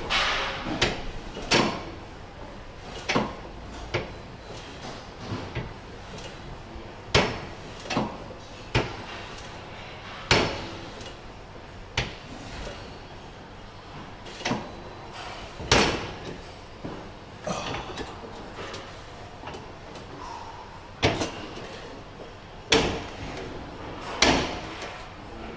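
Leg extension machine's weights clanking as one-leg reps are lowered: sharp metal knocks every one to two seconds, some much louder than others.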